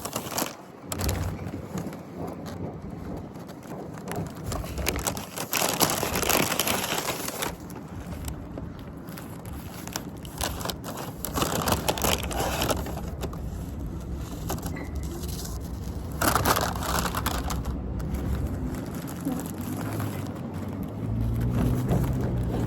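Fast-food paper bag and wrappers crinkling and rustling in irregular bursts as the meal is unpacked, over a low steady hum.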